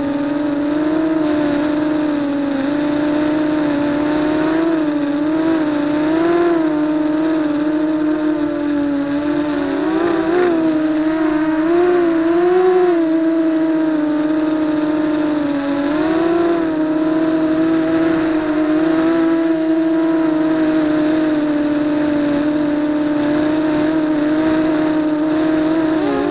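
ZMR250 racing quadcopter's brushless motors and propellers whining up close from the onboard camera, a steady, loud drone whose pitch rises and dips again and again with throttle changes.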